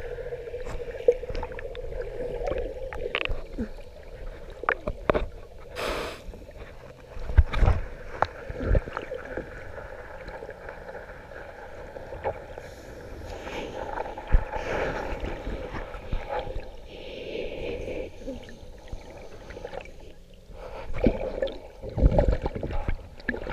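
Muffled water movement heard through a camera held underwater, with irregular knocks and bumps of handling against the camera and a steady low hum. The loudest knocks come about 7 to 9 seconds in and again near the end.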